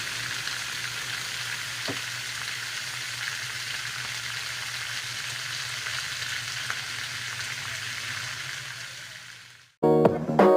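Pork pieces sizzling steadily in hot oil with garlic in a wok, with a light knock about two seconds in. The sizzle fades out near the end and acoustic guitar music starts.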